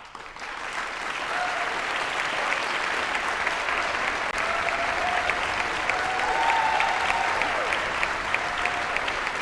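Concert-hall audience applauding, breaking out suddenly out of silence and swelling over the first second into full, steady clapping. A few voices call out over it.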